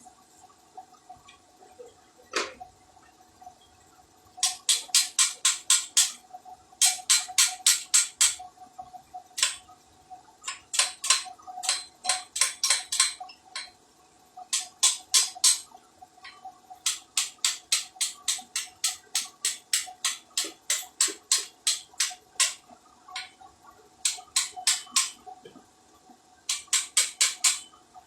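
A hand ratchet wrench clicking in runs of quick, even clicks, about six a second, each run lasting a second or two with short pauses between, as bolts are worked on the engine. A faint steady hum sits underneath.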